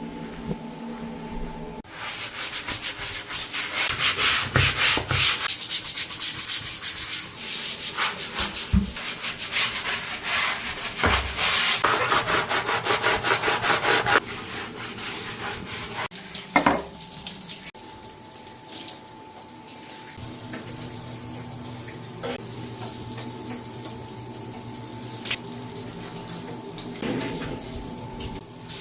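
Brisk scrubbing of a surface, many quick rubbing strokes for about twelve seconds. It then gives way to quieter handling sounds and a few light knocks.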